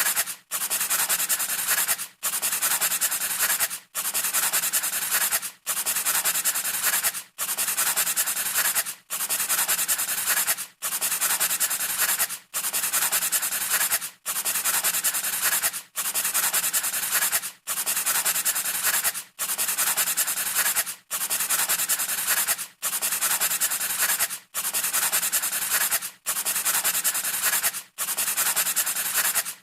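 Scratchy rubbing noise, repeating in strokes of about 1.7 seconds with short breaks between them, over and over like a looped sound effect.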